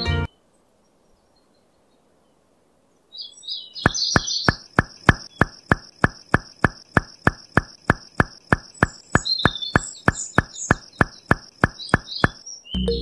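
Evenly repeated short knocks, about three or four a second, with bird chirps over them. They start about three seconds in, after near silence, and stop just before the end.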